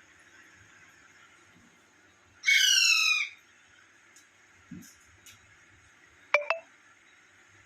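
Parrot giving a loud call of about a second made of rapid, repeated falling notes, then two short sharp calls a few seconds later.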